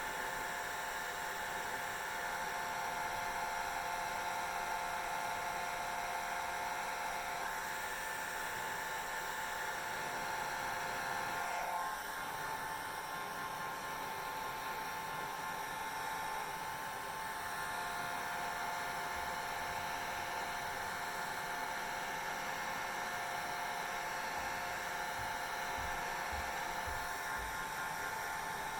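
Hair dryer running steadily: a continuous rush of air with a high motor whine. The pitch shifts briefly about twelve seconds in.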